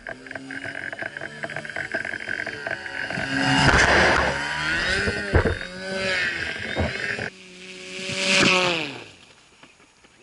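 Motor and fan of a small homemade hovercraft running and sweeping past, its pitch rising and falling with each pass. The sound cuts off abruptly about two thirds of the way through, swells and fades once more, then drops low near the end.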